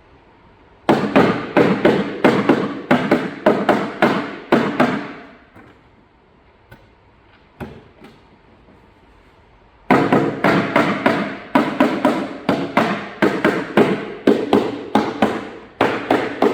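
Rubber mallet knocking the tenons of a phenolic racking panel into their holes: a quick run of about a dozen sharp knocks, about three a second, then a pause of several seconds and a second, longer run of knocks.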